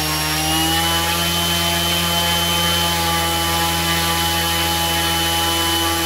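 Brushless RC motor spinning a propeller on a thrust test stand: a steady whine over a hum that rises in pitch about half a second in as the throttle is stepped up (current going from 4 to 5 amps), then holds steady.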